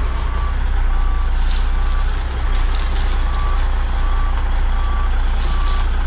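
Truck's reversing alarm beeping steadily, about four beeps every three seconds, over the low, steady rumble of its running engine as it backs up.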